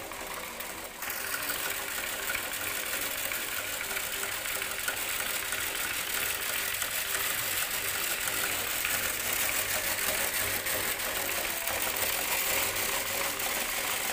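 Homemade wheat cleaning machine running: a steady mechanical rattle of its perforated-metal sieve and wheat grain, growing louder about a second in.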